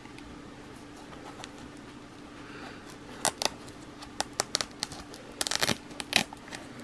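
Fingers rubbing and parting the synthetic fur of a plush electronic toy cat, giving a run of scratchy rustles and sharp clicks from about three seconds in, over a faint steady hum.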